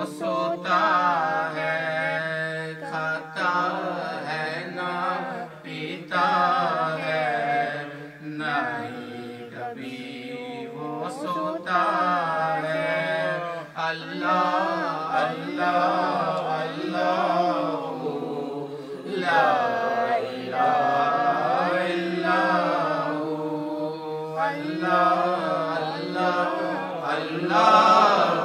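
A man's solo voice chanting a naat, Urdu Islamic devotional poetry, in long, ornamented held notes, loudest near the end.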